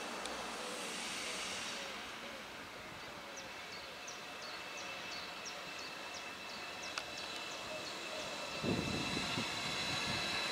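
An ICE 4 electric high-speed train rolling slowly past on the station tracks: a steady rumble and hiss, with a high steady whine that grows stronger near the end and a louder low rumble setting in over the last two seconds.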